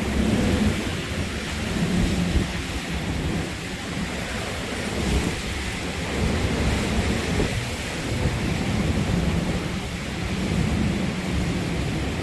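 Hurricane-force wind gusting with driving rain, the gusts swelling and easing every few seconds and rumbling heavily on the microphone.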